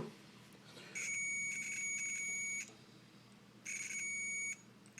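Multimeter continuity tester beeping: a steady high-pitched tone with the probes across pin 2 and pin 4, signalling an unbroken connection through the cable. A beep of about a second and a half starts about a second in, stuttering briefly at first, and a shorter beep follows near the end.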